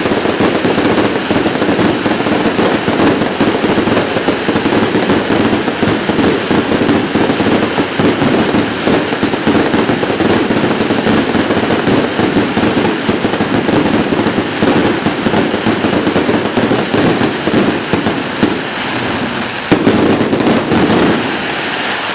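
Aerial fireworks display going off in a dense, continuous barrage of rapid bangs and crackling, easing a little near the end with one sharper, louder bang.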